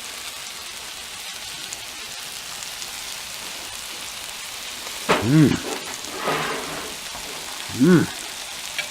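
Food sizzling steadily on a Blackstone flat-top griddle. About five seconds in and again near the end, a person's voice makes short sounds that rise and fall in pitch.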